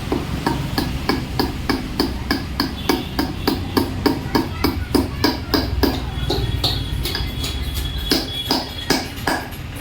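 A hammer striking repeatedly in an even rhythm, about four blows a second, then a few scattered blows near the end. A thin steady whistle sounds briefly in between, over a low steady rumble.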